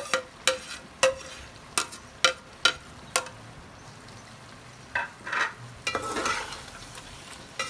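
A plastic container knocked about seven times against the rim of an aluminium cooking pot, each knock ringing briefly, to empty fried onions into the pot. Near the end a slotted metal spoon scrapes and stirs in the pot.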